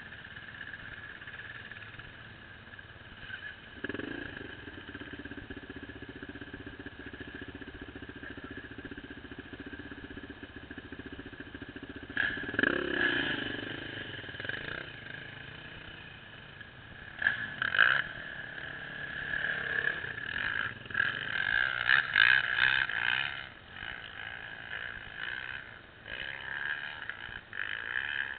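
Motorcycle engine running off-screen as a steady drone, with louder surges around 12, 17 and 21 to 23 seconds in.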